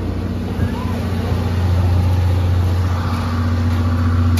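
Steady low drone of train machinery, with a second, higher tone joining about three seconds in.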